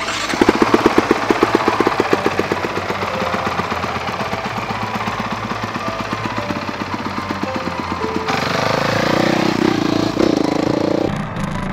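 Single-cylinder four-stroke engine of a Honda CRF supermoto running at low revs with a fast, even pulsing beat, then revving higher with a steadier note about eight seconds in as the bike pulls away.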